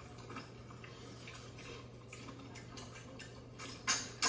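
People eating mutton biryani with their hands: a run of wet mouth smacks, sucking and chewing clicks, the two loudest close together near the end.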